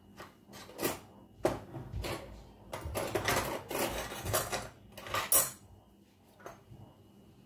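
Kitchen utensils and containers being handled on a countertop: a series of clinks and knocks, with scraping and clatter busiest from about three to five and a half seconds in.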